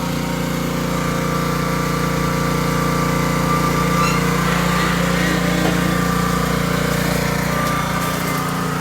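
Small engine running at a steady speed.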